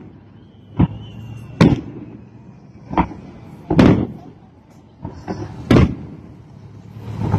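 Aerial fireworks shells bursting in a display: about seven sharp bangs at uneven intervals of roughly a second.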